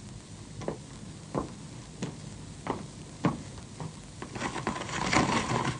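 Footsteps on a hard floor, about one every two-thirds of a second, then a longer rattling clatter near the end as a venetian blind is pulled up.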